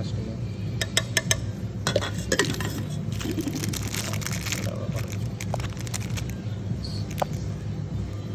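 Clinks and clatter of coffee-brewing utensils being handled: a few sharp taps about a second and two seconds in, a stretch of scraping and rattling after that, and a couple of single ticks later. A steady low hum runs underneath.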